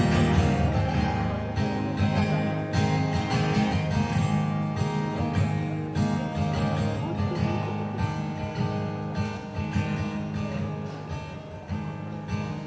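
Instrumental break of a live acoustic song: acoustic guitar strummed and plucked over sustained low notes. No singing until the very end, when the voice comes back in.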